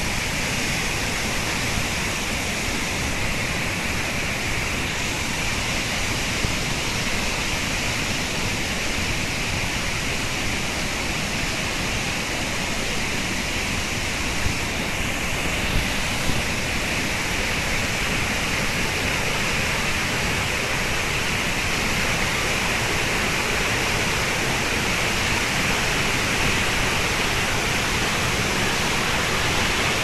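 Large waterfall pouring into a pool below: a steady, even rush of falling water.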